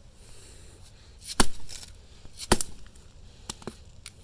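Two hard hammer blows about a second apart on a 3D-printed carbon-fibre-reinforced nylon intake air horn during an impact test, then a few faint clicks near the end.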